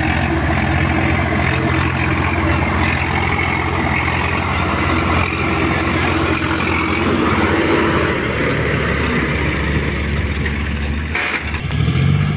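Diesel tractor engine running steadily as the tractor drives close by. Near the end the sound breaks off briefly and another engine drone takes over.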